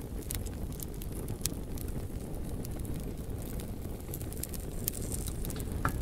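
Fire burning: a steady low roar of flames with scattered sharp crackles and pops.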